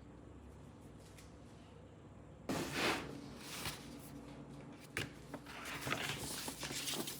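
Faint steady hum, then from about two and a half seconds in a run of rustling and clicking handling noises, with a few sharper knocks.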